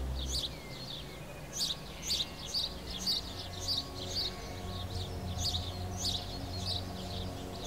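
Small birds chirping in repeated short calls, about two a second, over soft background music with held low notes.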